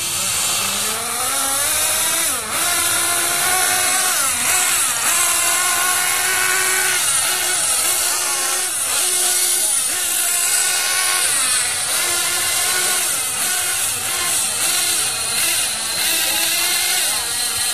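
Nitro RC car engines racing, their high-pitched buzz rising and falling again and again as the throttles open and close.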